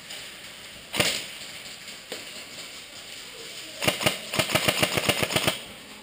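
Airsoft gun firing: a single sharp shot about a second in, then a rapid string of shots, about eight a second, for a second and a half near the end.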